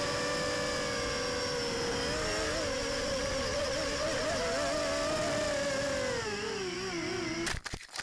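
Brushless motors and propellers of a Hermit 145 V2 micro quadcopter whining in flight, heard from a camera mounted on the quad; the pitch wavers with the throttle and falls about six seconds in. Near the end the whine breaks off into a rapid clatter of knocks as the quad crashes and tumbles into grass and rocks.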